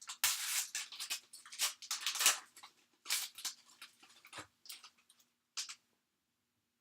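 A Panini NBA Hoops trading-card pack being torn open, its wrapper crinkling and rustling in irregular bursts that stop about six seconds in.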